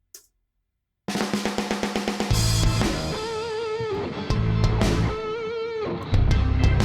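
Raw, unmixed rock demo playing back: a BFD3 sampled drum kit with kick, snare and cymbals, with guitars, starting about a second in. Bass and the full kit come in about two seconds in, under held notes with vibrato.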